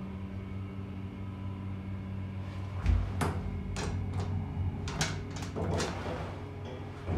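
1992 Stricker hydraulic elevator humming steadily as the car rises, then a heavy thump about three seconds in as the car stops. It is followed by several sharp clicks and knocks, with car-panel buttons being pressed.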